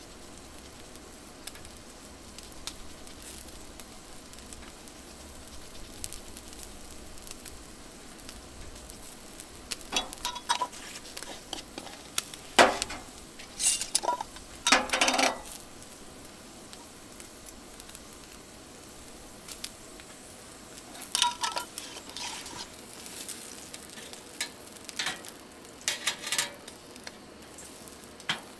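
Lamb chops sizzling on a wire grate over hot charcoal, fat crackling and popping, with louder spells of spitting about a third of the way in and again later on.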